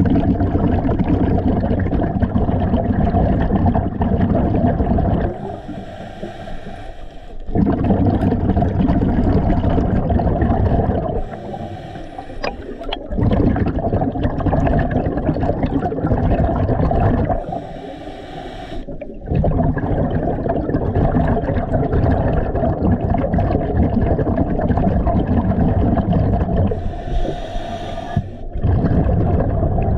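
A scuba diver breathing through a regulator underwater. Short hissing inhalations alternate with long, loud rumbling bursts of exhaust bubbles, about four breaths in all.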